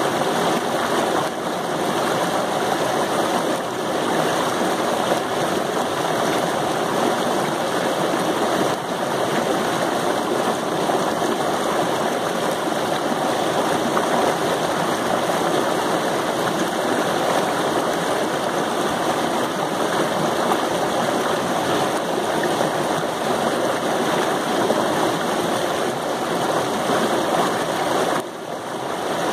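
Rushing water of a waterfall, a steady, even rush with a brief dip about a second before the end.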